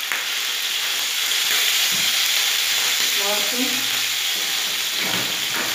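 Sliced sausage rounds sizzling in hot ghee in a non-stick frying pan: a steady frying hiss.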